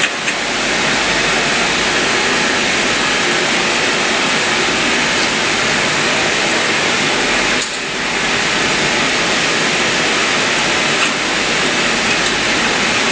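Steady, loud rushing hiss with no pitch to it, dipping briefly about eight seconds in.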